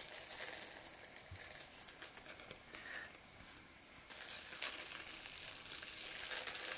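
Plastic cling wrap crinkling as it is peeled off painted card panels, faint, dropping away for a couple of seconds midway and then picking up again.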